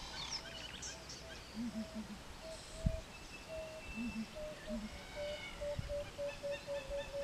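Wild birds calling: a series of low, dove-like coos that come faster and faster toward the end, over higher chirping and a deeper hoot repeated in groups of two or three every couple of seconds. One dull thump about three seconds in.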